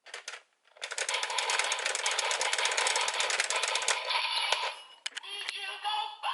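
Zenkai Buckle toy with a Kikainoid gear inserted, playing its sound effects: a dense run of rapid clicks starting about a second in and lasting about three seconds, then shorter electronic tones from the toy's speaker near the end.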